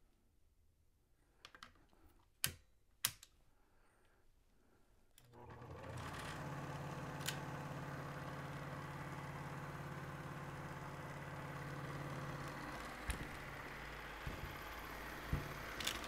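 Two sharp clicks, then about five seconds in an Elmo ST-1200 HD Super 8mm projector starts up and runs steadily: its motor, belts, shutter wheel and gears whirring with a low hum. It is noisy because the back cover is off the mechanism.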